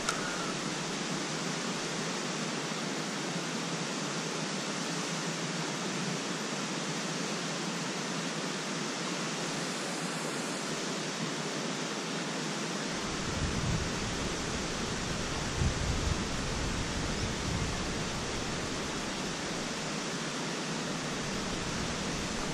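Steady wash of gentle sea water lapping against a rocky shore and seawall, a continuous even hiss with no distinct events. About halfway through, low rumbles of wind buffeting the microphone come in.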